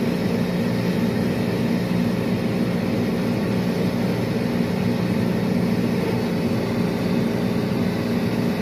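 A vehicle engine idling steadily, a constant low hum that doesn't change.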